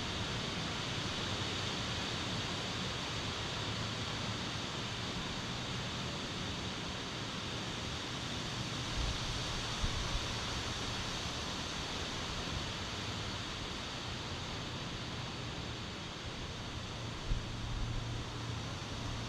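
Wind blowing steadily through trees, a continuous rushing hiss of leaves, with a few low buffets of wind on the microphone about halfway through and near the end.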